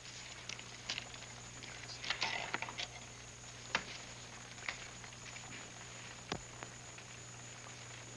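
Playing cards being dealt and handled on a table: scattered light taps and flicks at irregular intervals, over a steady low hum.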